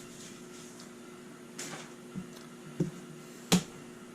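Small boxes and packaging being handled: a brief rustle, then three light knocks, the last and loudest about three and a half seconds in, over a faint steady hum.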